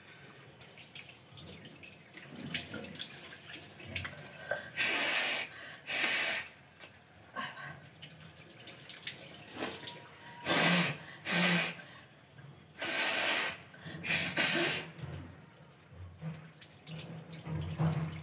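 A woman with a head cold forcing about six hard blasts of air through her nose over a wash basin, in rough pairs: nose blows and sneezes. A tap runs into the basin in between.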